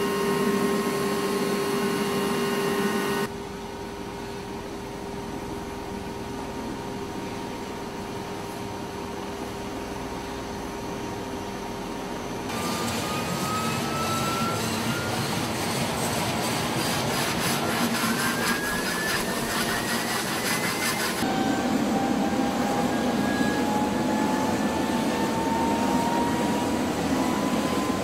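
V-22 Osprey tiltrotor running on the ground: a steady turbine whine, heard at first from inside the cargo cabin, then its Rolls-Royce AE 1107C turboshaft engines winding up with whines that rise steadily in pitch as the proprotors turn. The sound grows louder in the second half and changes abruptly a few times between shots.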